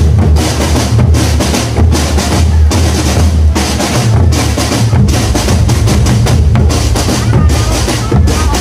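Marching drum band playing: bass drums and snare drums in continuous, loud, dense drumming.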